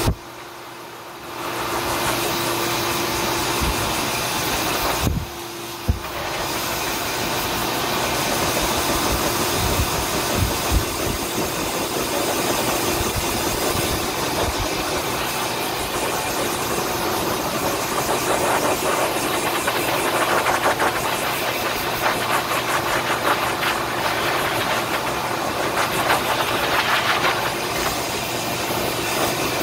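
Pet grooming dryer blowing a steady stream of air over a puppy's damp coat. It comes on about a second and a half in and dips briefly around five seconds.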